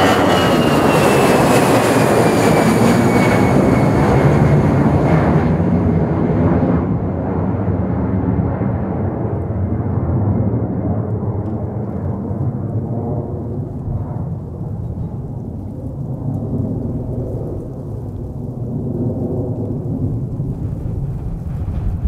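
Airbus A320 jet engines at takeoff thrust as the airliner passes low overhead and climbs away. A high whine falls in pitch over the first few seconds, the hiss dies away about seven seconds in, and a deep rumble slowly fades for the rest.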